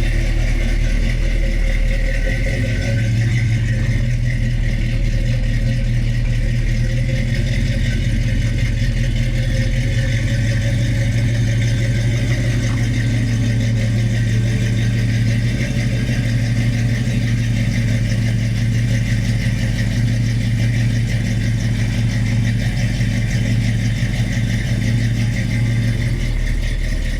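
1983 Oldsmobile Cutlass Hurst/Olds V8 engine idling steadily.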